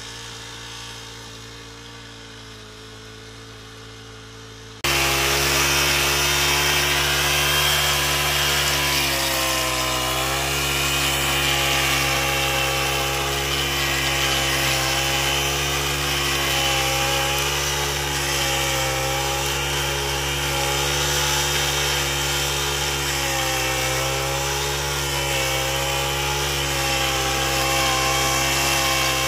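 Brush cutter engine running with a rotary weeder attachment whose tines churn through soil and weeds. It is faint at first, then loud and close from about five seconds in, with the engine note dipping in pitch now and then.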